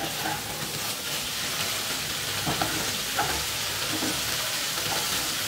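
Chana dal, ridge gourd and potato sizzling in a pan while a wooden spatula stirs them, with a few soft knocks of the spatula against the pan.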